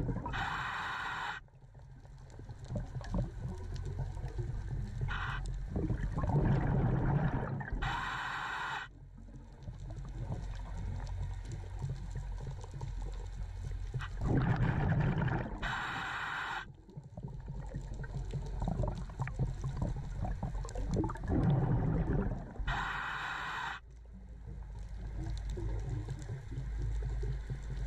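Scuba diver breathing through a regulator underwater: a hiss of air on each inhalation, four times about seven seconds apart, with a low bubbling rumble of exhaled air between breaths.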